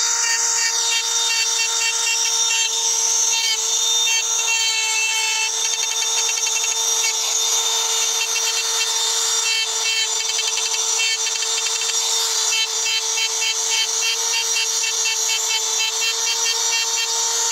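Handheld electric rotary engraving tool running with a steady whine, its bit scratching lines into a dark stone slab in clusters of short, quick strokes.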